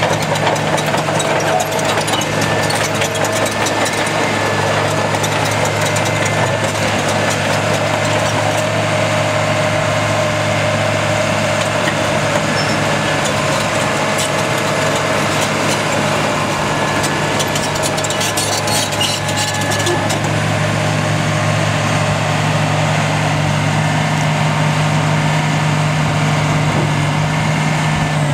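Caterpillar 953B track loader's diesel engine running at a steady low speed, its note unchanging.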